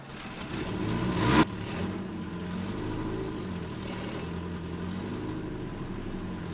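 Carbureted Chevy LUV race truck's engine revving up, rising for about a second and a half, then dropping abruptly to a steady, lower running note as it rolls slowly along. It is heard from inside the stripped cab.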